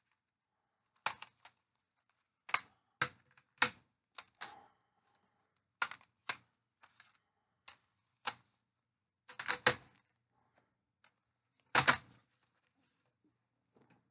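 Scattered key taps on a computer keyboard: single sharp clicks and short runs of two or three, spaced irregularly with pauses of up to two seconds between them.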